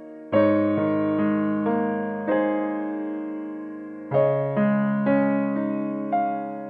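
Background music: a slow, gentle electric-piano melody, with notes and chords struck then fading away.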